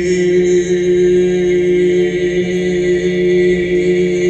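A steady, chant-like drone of held tones with layered overtones, part of a sound-poetry performance heard over a Skype call, with slight wavers in pitch about halfway through.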